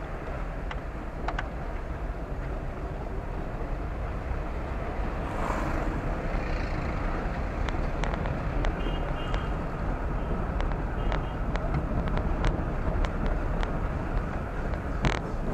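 Car driving along a road: a steady rumble of engine and tyre noise that grows slightly louder. Light clicks and rattles come and go, with a sharper knock near the end.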